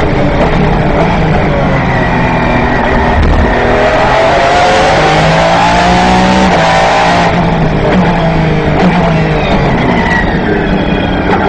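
Aston Martin V12 engine of a Lola-Aston Martin B09/60 prototype at racing speed, heard from inside the cockpit. The revs climb, drop sharply about seven seconds in, fall away, then climb again near the end.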